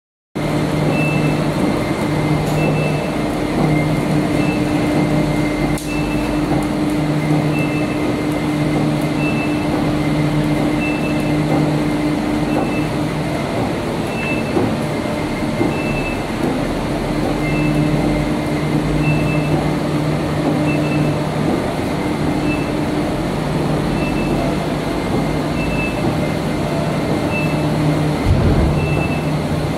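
Aluminium coil slitting line running, the recoiler winding slit strip: a steady mechanical hum with a low tone that comes and goes for several seconds at a time. A faint high pip repeats about once a second throughout.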